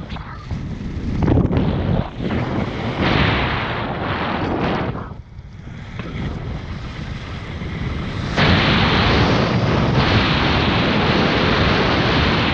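Wind rushing over the camera microphone of a paraglider in flight, gusting up and down. It dips briefly about five seconds in, then is at its loudest and steady from about eight seconds in.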